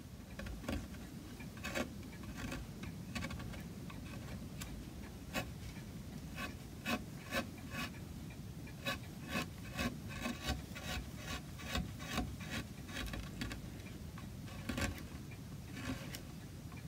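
Needle file and small paring tool scraping the sawn edges of a thin oak fretwork piece in short, irregular strokes, cleaning up the cuts. The strokes come fastest in the middle stretch.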